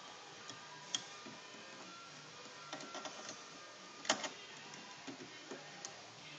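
Scattered small clicks and scrapes of a screwdriver working the wire terminal screws on a switch and outlet in a pet dryer's metal end cap, the loudest click about four seconds in.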